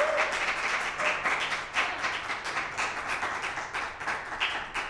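Small audience applauding with hand claps, thinning out near the end.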